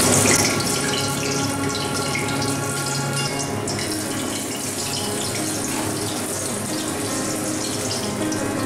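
Hot oil sizzling steadily in a kadai as batter-coated pointed gourd pakoras deep-fry.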